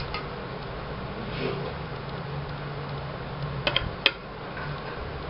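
Metal serving spoon clinking against a plate while rice is served: a couple of light clinks at the start, then a quick cluster of sharper clinks about four seconds in, over a steady low hum.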